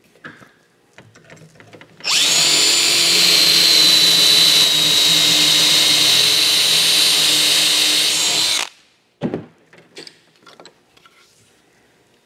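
Cordless drill boring a dowel hole through a doweling jig into the edge of a wooden board. It runs as one steady whine from about two seconds in, stops abruptly some six and a half seconds later, and is followed by a short sharp knock.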